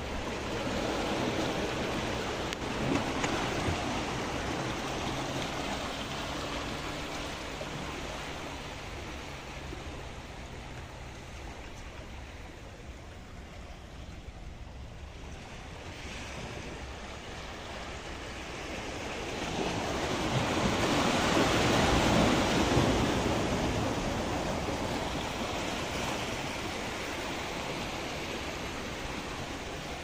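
Small sea waves washing and foaming against the boulders and concrete blocks of a breakwater, a steady wash that swells loudest about two-thirds of the way through, then eases off.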